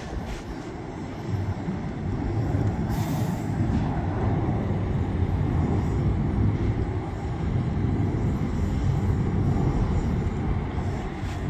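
Low, steady rumble of a distant jet airliner in flight, with wind on the microphone; it grows louder about a second and a half in and then holds.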